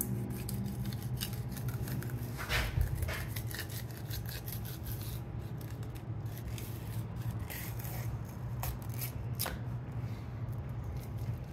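Knife filleting a king salmon: the blade cutting and scraping through flesh and bone in scattered light clicks and rasps, over a steady low hum.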